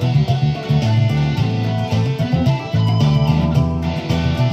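Electric guitar playing a boogie, with a steady pulse of picked attacks over repeating low notes.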